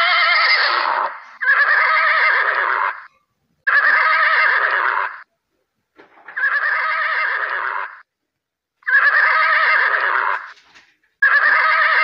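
A horse whinnying again and again: a call of about a second and a half with a quavering pitch, repeated roughly every two seconds with clean silence between the calls.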